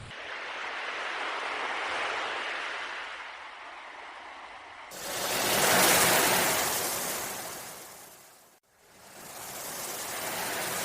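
Ocean waves washing ashore in slow surges that swell and fade, the loudest about six seconds in, with a brief dropout before the next wave.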